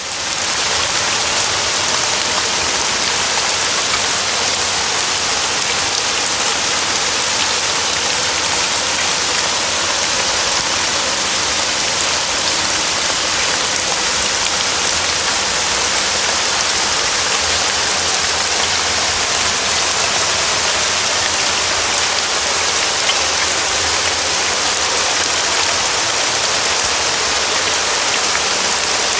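Steady rain falling in a forest, an even hiss of drops on leaves and ground with no single loud event, fading in at the very start.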